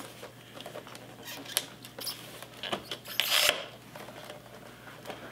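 Clear plastic blister packaging crackling and clicking as it is worked loose from its cardboard backing card, with a louder crinkling rustle about three seconds in.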